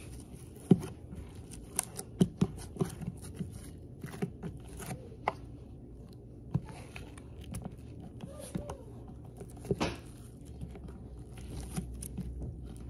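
Hands handling and tapping a small plastic container on a tabletop: scattered sharp clicks and taps, the loudest about a second in, several more two to three seconds in and another near the ten-second mark.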